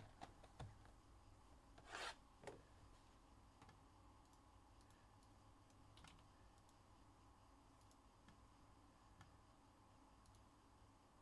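Near silence with a few faint clicks and one short scrape about two seconds in.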